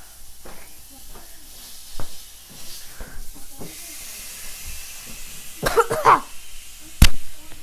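Filet steak sizzling in a hot pan, a steady hiss. A few sharp knocks cut through it, the loudest about seven seconds in.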